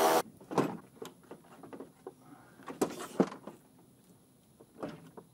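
Scattered knocks, clicks and scrapes of metal and plastic as a pickup's radiator and its plastic shroud are worked loose and lifted out of the front end, with quiet gaps between them.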